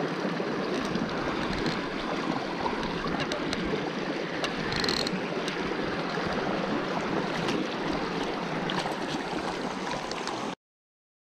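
Mountain creek running over a rocky riffle, a steady rush of water with a few faint clicks in it. It cuts off suddenly just before the end.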